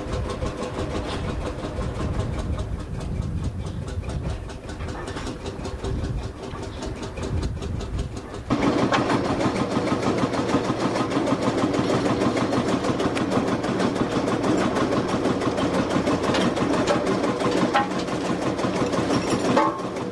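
An engine running steadily with a rapid, even mechanical beat, suddenly louder and fuller about eight and a half seconds in.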